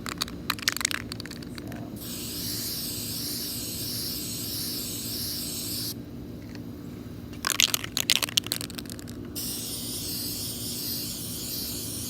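Aerosol spray paint can, fluorescent paint, shaken with a rapid rattle and then sprayed in a steady hiss. It is shaken and sprayed again about halfway through.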